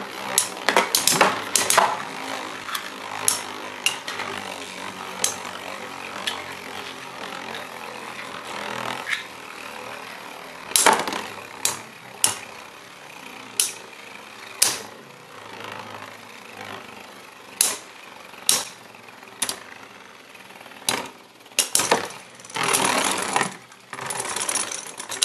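Two metal-wheeled Beyblade tops, Diablo Nemesis and Lightning L-Drago, spin with a steady whir on a plastic stadium floor and clack sharply each time they collide. There is a quick flurry of hits at the start, then single knocks every second or so, and a stretch of close, grinding contact with rapid clashes near the end.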